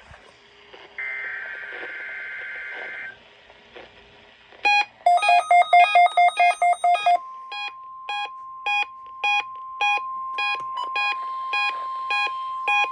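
NOAA Weather Radio weekly test: a harsh two-pitch SAME data burst for about two seconds, then a weather radio receiver's electronic alert beeping, rapid at first and then about two beeps a second over the steady 1050 Hz warning alarm tone that begins about seven seconds in.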